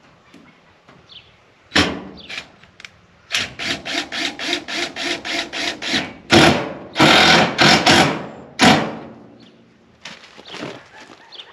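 A power driver running in bursts as it drives screws through a steel siding panel into the wall framing, the motor tone pulsing about four times a second and then running in longer loud bursts. There is a sharp knock on the panel about two seconds in.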